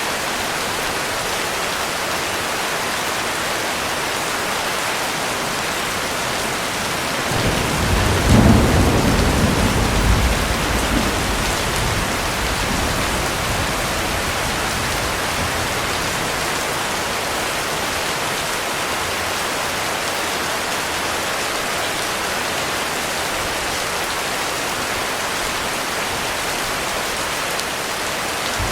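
Heavy rain falling steadily, with a roll of thunder rumbling in about seven seconds in, peaking briefly and dying away over several seconds.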